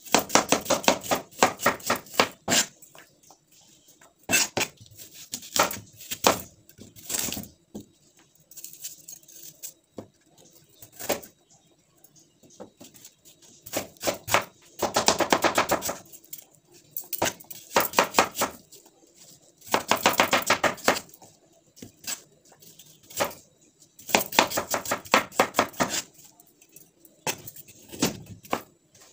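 Broad kitchen knife chopping apple and carrot on a wooden cutting board: quick runs of sharp strokes, each run lasting a second or two, with pauses between them.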